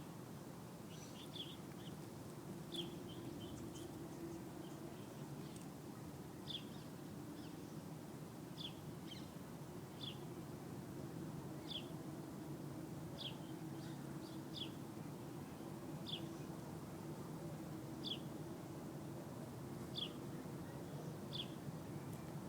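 A bird repeating one short, high, slightly falling chirp about every second and a half, over a steady low background hum.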